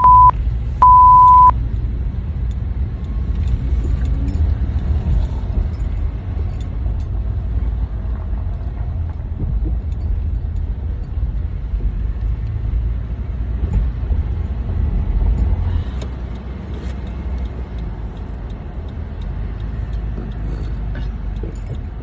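Steady low rumble of a car's engine and road noise heard from inside the cabin while driving. A flat, single-pitch bleep sounds briefly about a second in.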